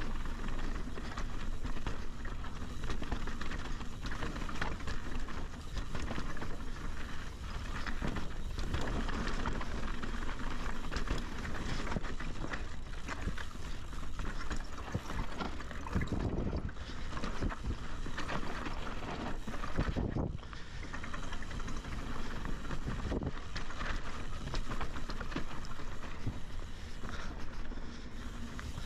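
Mountain bike descending a dry, rocky dirt trail: tyres crunching over loose gravel and the bike rattling over bumps, with a few heavier knocks from hard hits about halfway through. Wind rushes over the microphone.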